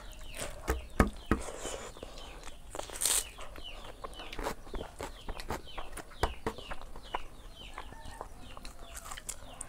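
Eating sounds: many short, sharp mouth clicks and smacks as rice and pork are chewed, eaten by hand. Chickens cluck in the background with repeated short chirps.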